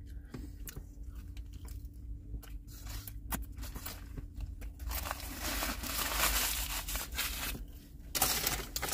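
Chewing with small wet mouth clicks; about five seconds in, louder rustling and crinkling as things are handled and shifted, lasting about three seconds.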